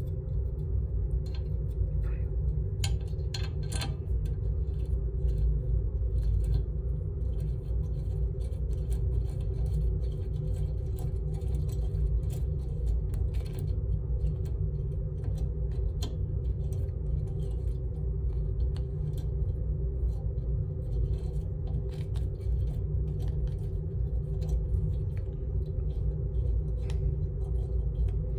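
A steady low hum with a few steady tones in it, unchanging throughout, and now and then a faint click from small metal parts being handled.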